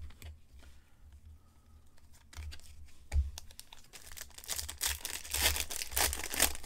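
Trading-card pack wrapper being torn open and crinkled, a dense crackle starting about four seconds in after a few seconds of light handling.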